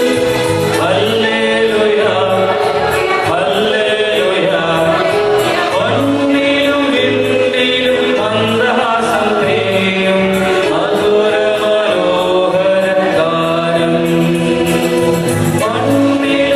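Mixed choir of women and men singing a Malayalam Christmas carol, accompanied by an electronic keyboard with a regular low bass line.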